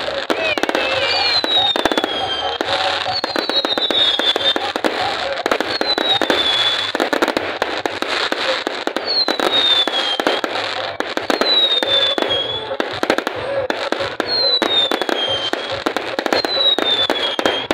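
Fireworks display: a dense, continuous run of bangs and crackling bursts, with short falling whistles every couple of seconds. Crowd voices murmur underneath.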